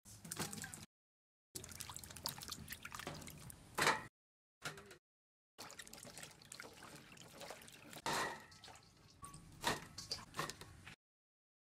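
Water splashing and dripping as hands wash vegetables in a bowl of water, with a few louder splashes. It comes in short stretches broken by abrupt gaps of silence.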